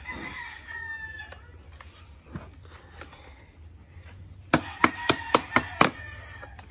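A rooster crowing in the background near the start. A couple of seconds later comes a quick run of about seven sharp knocks from the plastic pails as the inner pail is pried and worked loose from the outer one.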